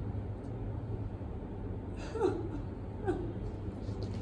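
A woman crying softly: two short sobbing cries that fall in pitch, about two and three seconds in, over a low steady hum.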